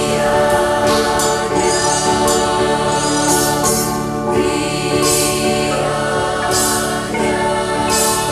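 Music with choral singing: a choir of voices over sustained accompaniment, with bright accents every second or so.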